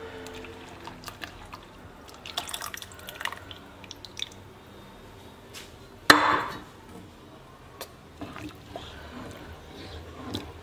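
Milk mixed from powdered milk and water poured from a glass jar into a pot of cooked rice, splashing in, with a few light clinks. About six seconds in comes a sharp knock, the loudest sound, followed by a spoon stirring in the pot.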